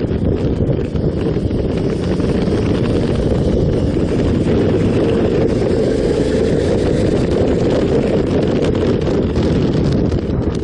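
Steady wind rush buffeting the microphone of a motorcycle under way, with its engine and road noise running beneath it.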